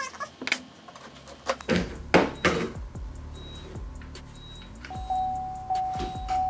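Several sharp knocks and clatters of hard plastic car trim being handled: the side vent grille just removed from a C7 Corvette fender. Background music underneath, with a steady held tone coming in about five seconds in.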